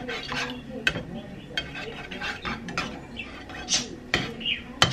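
A black plastic spatula scraping and tapping against a nonstick frying pan on a gas burner. The clicks and knocks are sharp and irregular, the loudest about a second in and near the end.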